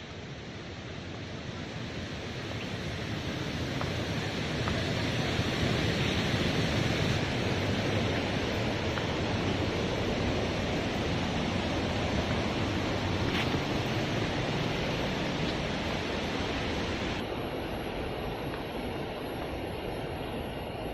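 Waterfall: a steady rush of falling water that swells over the first few seconds and then holds.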